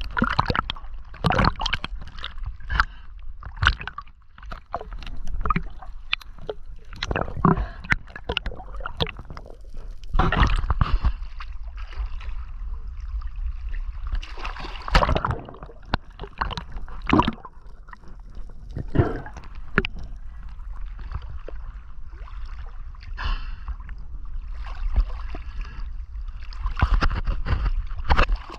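Water sloshing and gurgling around the camera in irregular surges over a steady low rumble, as waves break around a spearfisher.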